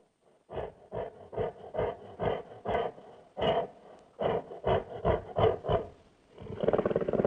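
Recreated King Kong growling: a run of short growls about two a second, then a longer, louder growl starting about six and a half seconds in.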